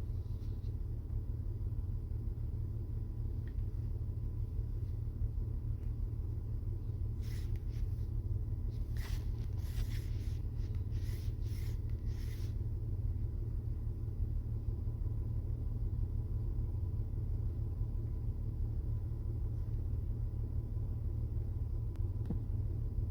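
Steady low rumble inside a car cabin. About seven seconds in comes a quick run of short clicks and rustles lasting about five seconds.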